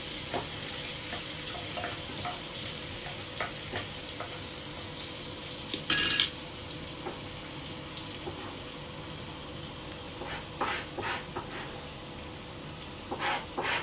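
Green chillies, ginger, cumin and asafoetida sizzling in hot oil in a kadai: a tadka being fried, with a metal spoon stirring. About six seconds in, a metal spoon clatters briefly onto a steel plate, the loudest sound.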